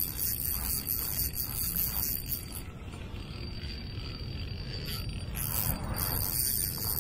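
Insects, crickets or katydids, trilling in a steady high chorus that thins out for a couple of seconds midway, over a low rumble.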